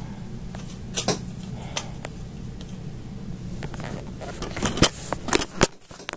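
Handling noise from a tablet being set up to film: a few scattered clicks and knocks over a steady low hum, with a cluster of knocks near the end.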